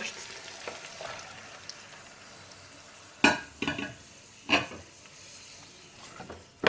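Meat sizzling as it fries in oil in a pot, with a few sharp knocks of kitchenware, the first about three seconds in and the last near the end.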